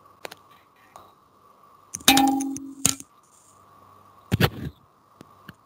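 A few sharp clicks and two louder clattering clinks, the first about two seconds in with a brief ringing tone, the second about four and a half seconds in, over a faint steady hum.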